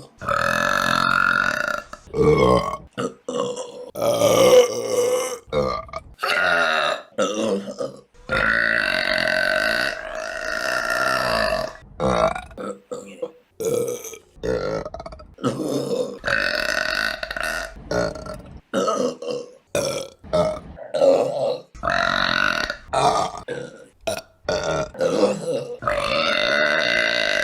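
A string of women's burps, one after another with sudden cuts between them: most last a second or two, and one long, drawn-out burp runs for about three and a half seconds near the middle.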